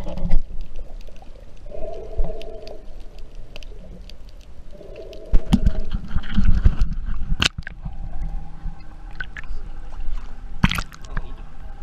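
Water sloshing and gurgling around an action camera as it moves from underwater up to the sea surface. In the first half there are a couple of short, muffled hollow tones, and in the second half there are sharp splashes, the loudest near the end.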